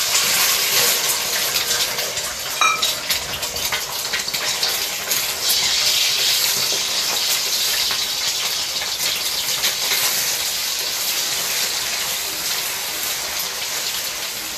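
Eggs sizzling and crackling in hot oil in an aluminium kadhai, starting suddenly as they are poured in, then frying steadily while being scrambled with a wooden spatula.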